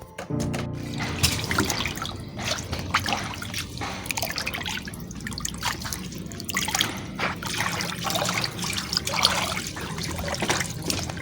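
Water splashing and trickling unevenly as a plastic toy animal is swished through a small pool of water, starting abruptly just after the beginning.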